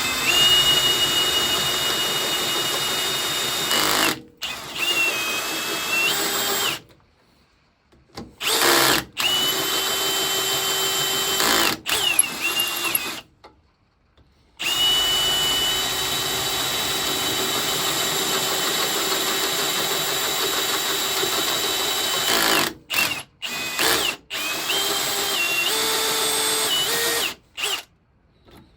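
Electric drill running in several stretches, stopping and starting, with a steady motor whine and short on-off bursts near the end, as it drills the recesses for screw heads.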